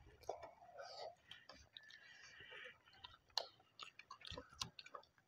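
Faint close-up chewing and mouth smacking of people eating food by hand, with scattered sharp little clicks.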